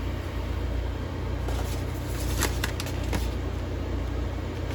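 Steady low hum with a few faint crinkles and clicks, between about one and a half and three seconds in, of small plastic bags of diamond-painting drills being picked up and handled.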